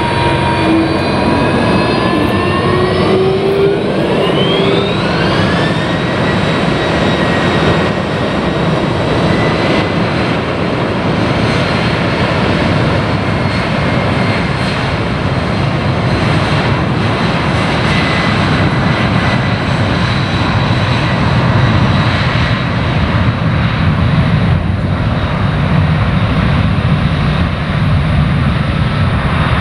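Twin turbofan engines of a Boeing 767 freighter spooling up to takeoff thrust: a whine rising in pitch over the first several seconds, then a steady loud jet roar as the airliner accelerates down the runway.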